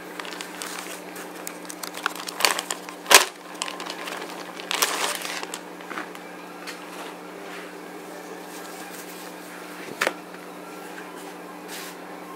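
Clear zip-top plastic bag crinkling as a cotton T-shirt is handled, pulled out and spread flat, with scattered crackles and a few sharp clicks, the loudest about three seconds in. A steady low hum runs underneath.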